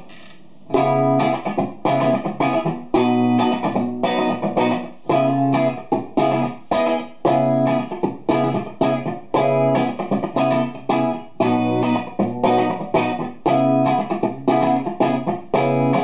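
Electric guitar, a Gibson Les Paul '54 reissue Goldtop played on its bridge P90 pickup: a rhythmic riff of repeatedly struck chords and single notes, starting just under a second in.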